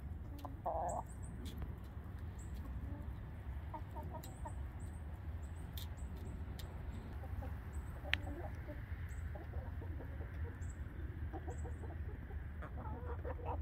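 Backyard hens, Rhode Island Reds among them, clucking in short scattered bursts that grow busier near the end. A short, high chirp repeats every second or so over a steady low rumble.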